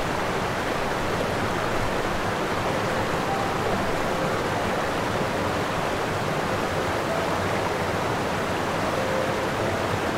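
Steady, even rushing of water, like surf or a stream.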